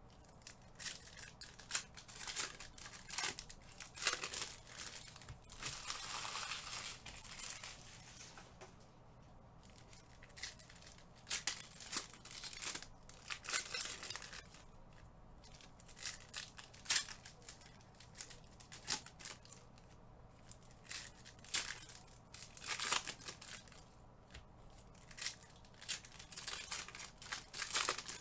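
Plastic wrapping being handled: crinkling and tearing, in many short crackles and clicks, with a longer tear-like rustle about six seconds in.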